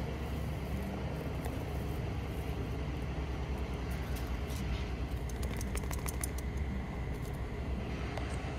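A steady low rumble of outdoor background noise, with a run of faint sharp clicks about five to six and a half seconds in.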